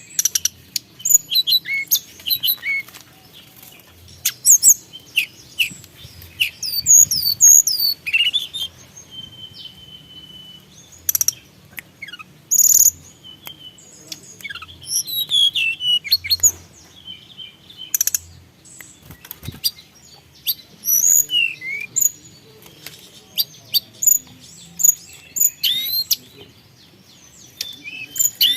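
Tledekan gunung songbird singing a fast, varied song of high chirps, short rising and falling whistles and clicks in quick bursts with brief pauses.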